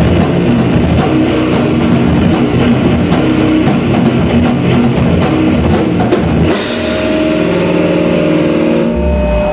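Live rock band playing loud, with distorted electric guitar and a drum kit. About six and a half seconds in a cymbal crash hits and the band lets a chord ring out.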